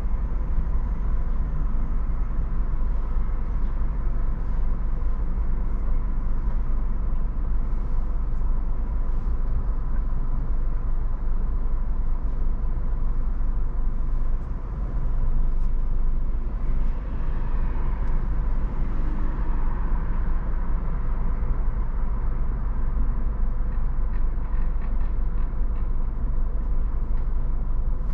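Low, steady rumble of a car sitting stationary at a traffic light, heard from inside the cabin, with street traffic outside. A passing vehicle swells briefly about two-thirds of the way through.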